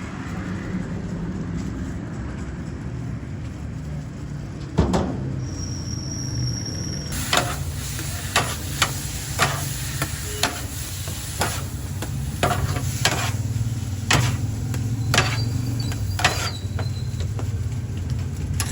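Cooking utensils knocking sharply and irregularly, about one or two strikes a second from about a third of the way in, over a steady low rumble of traffic.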